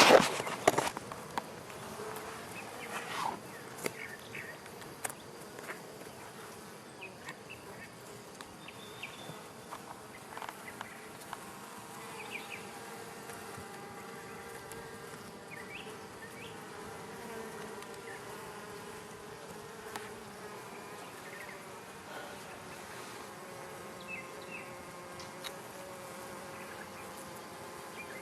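Honey bees buzzing around an open hive: a steady, droning hum. There are a few louder knocks right at the start, and light clicks and taps here and there.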